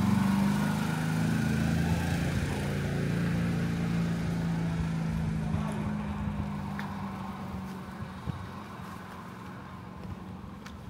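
A motor vehicle's engine driving away, loudest at first and fading into the distance over several seconds.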